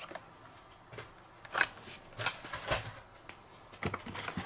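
Hot Wheels cars in plastic blister packs on cardboard cards being handled and pulled from a cardboard case: a few short, irregular crinkles and taps of plastic and card.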